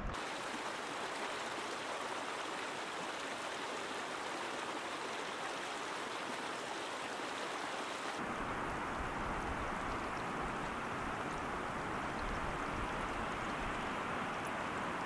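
Rushing water of a mountain stream, a steady rush without breaks. About eight seconds in, the sound changes abruptly to a deeper, fuller rush.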